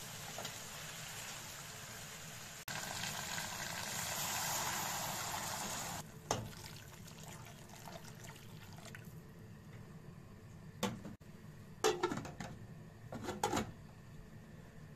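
Roast chicken sizzling in its juices in a hot aluminium pot: a steady hiss that gets louder about three seconds in and stops about six seconds in. After that come a few sharp metal clinks from the spoon and the aluminium lid knocking against the pot.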